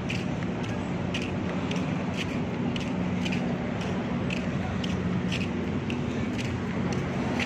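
Footsteps on paving stones at a walking pace, about two steps a second, over a steady low mechanical hum.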